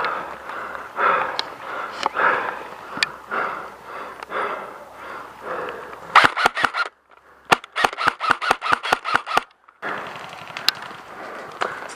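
Running footsteps crunching through dry fallen leaves, then an airsoft rifle firing a short burst and a string of about ten sharp shots at roughly five a second, followed by more rustling of leaves.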